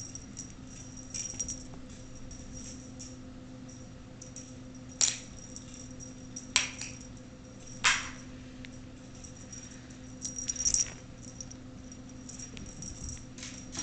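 Kittens at play with a wand toy: three sharp taps spaced about a second and a half apart, then a quick cluster of taps, with a faint rattling between them. A steady low hum runs underneath.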